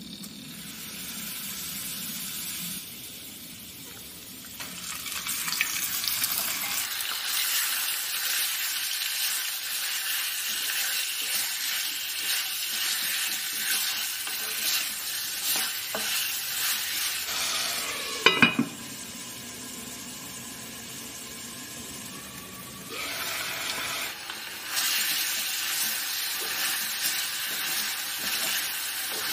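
Chicken pieces frying in hot oil in a pan, sizzling steadily while being stirred and turned with a wooden spatula. The sizzle starts softer and grows louder a few seconds in. A sharp knock about two-thirds of the way through is the loudest sound, and the sizzle is quieter for a few seconds after it before building again.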